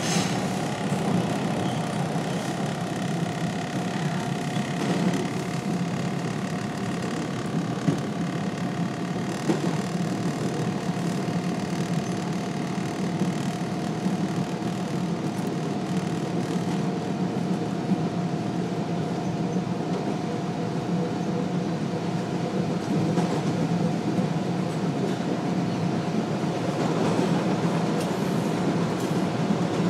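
Toronto subway train running at speed through a tunnel, heard from inside the car: a steady rumble of wheels on rails with a constant tone above it and a few sharp clicks.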